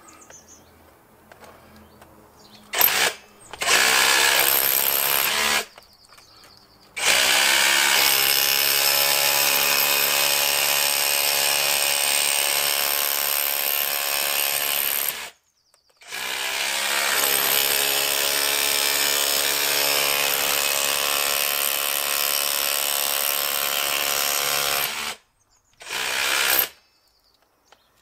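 Cordless SDS-plus rotary hammer chiselling, its hammer blows fast and even, in several bursts: a short one about three seconds in, two long runs of about eight and nine seconds in the middle, and a brief one near the end.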